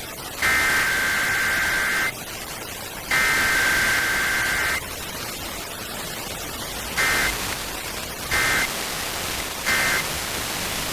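EAS digital data bursts (SAME header tones): two long, harsh two-tone screeches about a second apart, then three short end-of-message bursts near the end. All of it sits over constant radio static.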